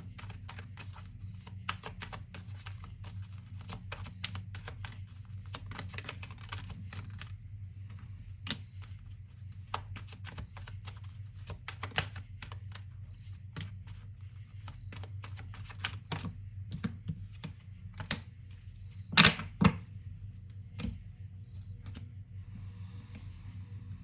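Tarot cards being shuffled and handled: a long run of irregular light clicks and snaps over a steady low hum, with two louder knocks near the end.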